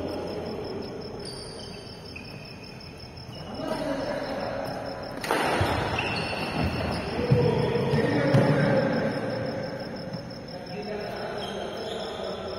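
Sounds of a doubles badminton rally in a reverberant hall: players' voices and a few sharp smacks of rackets on the shuttlecock, the loudest about five seconds in. Behind them runs a steady high pulsing chirp like crickets.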